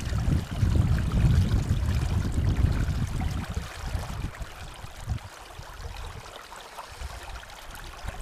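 Shallow river water rushing and sloshing around a wading angler's hands. Wind buffets the microphone as a low rumble that eases about three and a half seconds in, leaving the quieter flow of the water.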